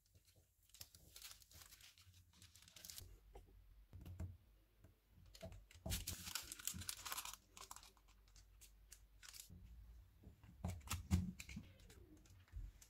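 A kitchen knife slicing through a slab of milk powder barfi. Faint, irregular scrapes, with the blade rustling and crinkling the butter paper underneath at each cut.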